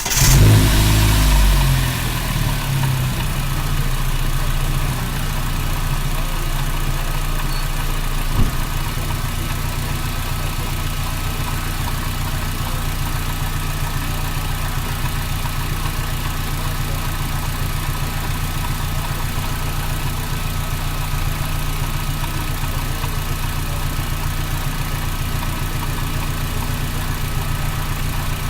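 Audi A4 B5's 1.8T turbocharged four-cylinder engine, fresh spark plugs and coil packs just fitted, starts with a brief flare of revs and settles within a couple of seconds into a steady idle.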